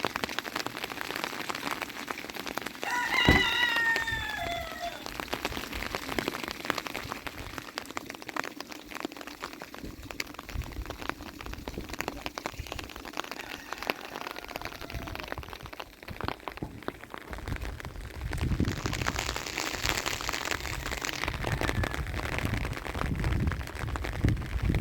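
Rain falling steadily, a dense patter of drops on surfaces. About three seconds in comes a sharp knock, then a brief call that falls in pitch. Near the end a louder low rumble joins the rain.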